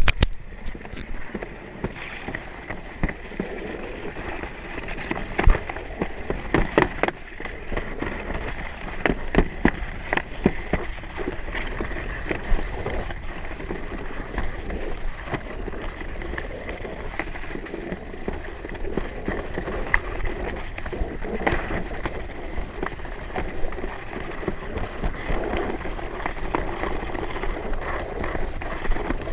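Alpine slide sled running down its concrete trough: a steady rumble and scrape of the sled on the track, with frequent sharp knocks and rattles as it bumps along.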